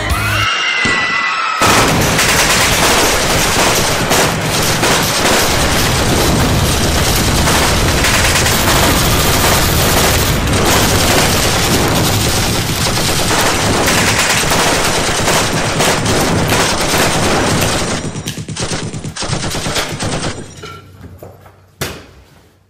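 Sustained rapid gunfire in machine-gun-like volleys, starting about a second and a half in. It thins to scattered shots and dies away near the end.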